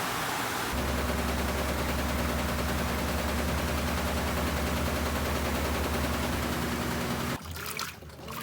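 Brastemp BWK17 washing machine: water rushing in with a steady hiss, while a motor inside hums with a low buzz from about a second in and then stops abruptly near the end, leaving water trickling.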